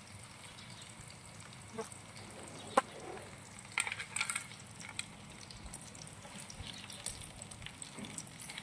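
Food frying in a pan with a faint, steady sizzle, broken by a few sharp clicks of a utensil stirring in the pan. The loudest click comes about three seconds in, and a quick cluster follows about a second later.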